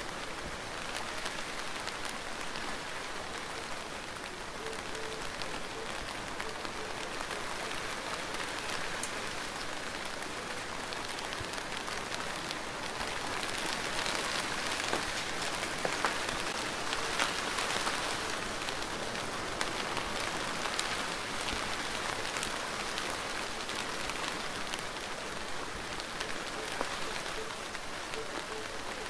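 Steady rain falling, with individual drops ticking through it; it grows a little heavier for several seconds in the middle.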